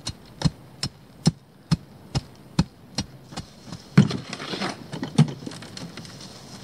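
Heavy steel pry bar ramming gravel down around a fence post, about two strikes a second. About four seconds in, a shovel digs into gravel in a wheelbarrow with a loud hit, a scrape of gravel and another hit.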